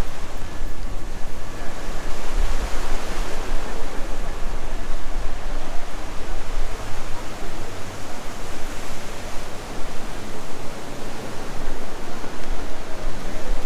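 Steady rushing of ocean surf, with wind buffeting the microphone as a shifting low rumble.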